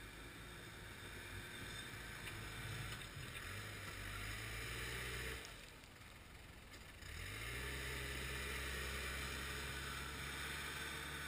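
Diesel engine of a snow-plowing machine running under load. Its pitch steps up about a third of the way in, drops away briefly near the middle, then rises again and holds steady.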